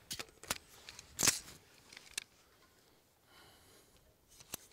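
A few short sharp clicks and clacks of gun handling, the loudest about a second in.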